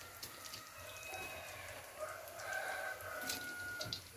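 A rooster crowing faintly, one long drawn-out crow that lasts about three seconds.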